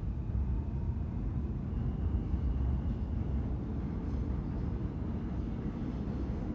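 R160B subway train with Siemens propulsion pulling out of an elevated station: a steady low rumble of wheels on rail and running gear.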